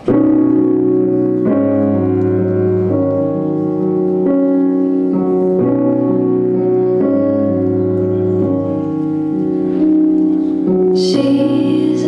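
Slow piano music starts suddenly, with sustained chords changing about every second and a half.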